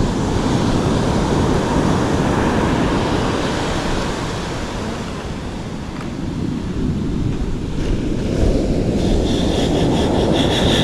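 Surf breaking on the beach, with wind buffeting the microphone; the wash eases for a few seconds in the middle and swells again. Near the end a high, rapidly ticking buzz comes in over it.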